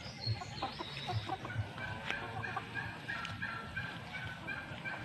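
Free-range flock of Rhode Island Red and Australorp chickens clucking, with a run of short repeated calls from about two seconds in. Regular low thumps sound through the first second and a half.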